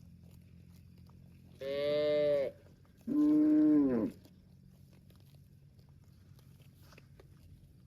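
Cow mooing twice: two short calls, each under a second long, about a second apart, the second sliding down in pitch as it ends.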